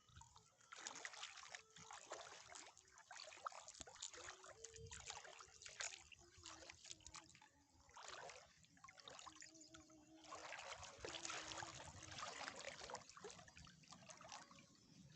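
Water trickling and splashing in uneven bursts, faint overall.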